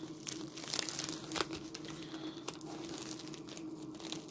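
Plastic packaging crinkling as it is handled, in irregular crackles, over a steady low hum.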